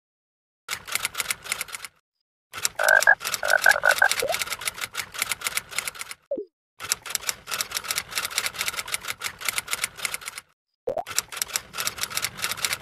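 Typing sound effect: fast runs of keyboard clicks in four stretches, broken by short pauses.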